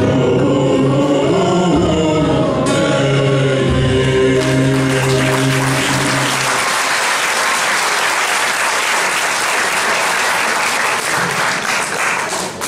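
A Turkish folk song, sung by a male soloist with a mixed choir, ends on a long held note about six and a half seconds in. Audience applause breaks out just before the song ends and carries on loudly after it.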